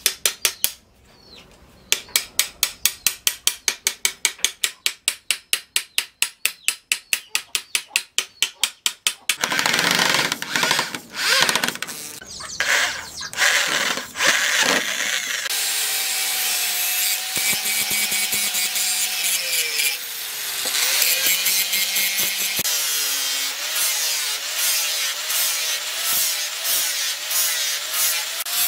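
Rapid light hammer blows, about five a second, on a punch held against the steel knife blank. Then an electric hand drill runs in short bursts as it bores through the wooden handle. For the last half, an angle grinder with a sanding pad whines and rubs against the wooden handle, its pitch dipping and wavering as it is pressed in.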